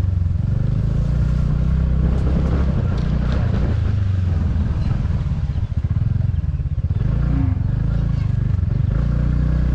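Motor scooter engine running at low speed on a bumpy dirt lane, with rattles and clatter from the rough ride; the scooter slows down in the second half.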